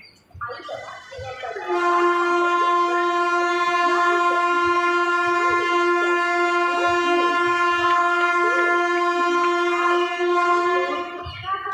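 Locomotive horn sounding one long steady blast of about nine seconds, swelling up briefly before it settles into a held note, from an express train arriving at a station.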